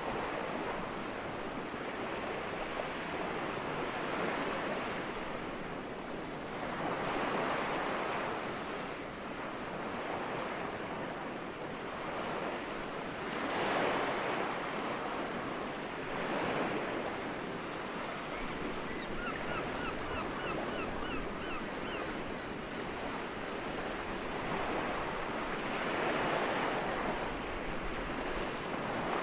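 Gentle sea waves washing onto the shore, the surf swelling and falling back every few seconds. About two-thirds of the way through, a gull gives a quick run of short repeated calls.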